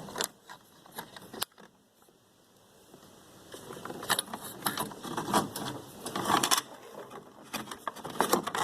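Scattered clicks, scrapes and rattles of hand work on a car door panel as a part is worked loose. There is a short near-quiet pause about two seconds in, then busier handling noise.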